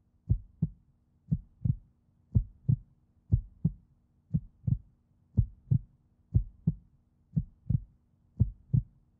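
Heartbeat sound effect: slow paired low thumps, a lub-dub about once a second, over a faint steady low hum.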